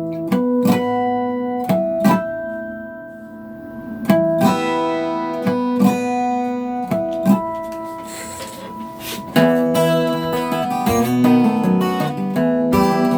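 Acoustic guitar playing slow strummed chords in E minor, each struck and left to ring. About nine seconds in it moves into a busier, faster run of picked notes and strums.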